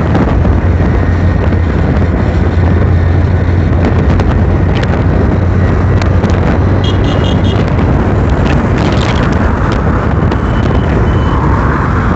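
Steady loud rush of wind and road noise from a vehicle moving along a highway, with a constant low hum underneath.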